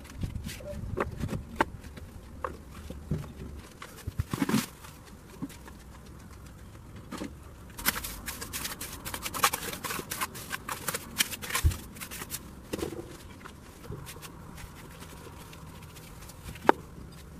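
Hand work with wet concrete: a trowel scraping and spreading the mix, among scattered knocks and clicks of the plastic mold and pavers being handled. The scraping is densest in the middle, and one sharp click comes near the end.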